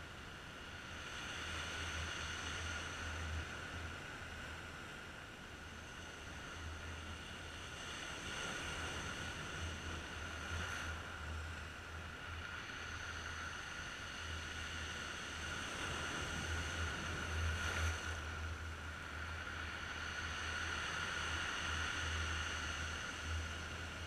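Sea waves washing in over a rocky shore, surging and falling back every several seconds, with the strongest surge a little past the middle.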